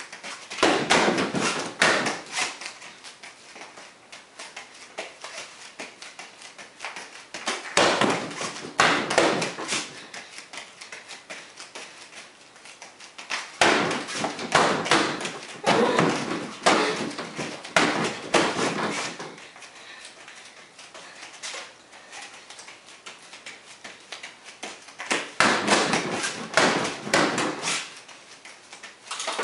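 Flurries of rapid kicks and punches striking a Century Wavemaster freestanding punching bag. Four bursts of several quick hits each, with pauses of a few seconds between them.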